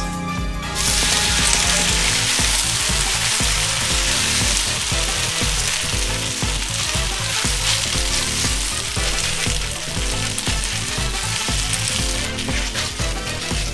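Flat rice noodles sizzling as they hit a hot oiled wok about half a second in, then frying steadily while being turned with a wooden spatula. Background music with a steady beat plays underneath.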